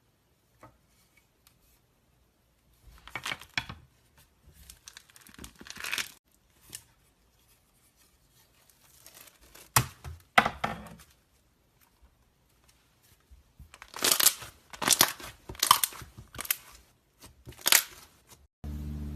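Slime being stretched and squished by hand, in irregular bursts of sticky, crackling, tearing noise with short pauses between. Just before the end a steady low hum begins.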